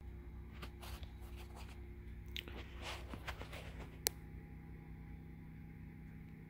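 Hampton Bay Devron II ceiling fan running with a steady low motor hum. Scattered small rustles and clicks sound over it, and one sharp click comes about four seconds in.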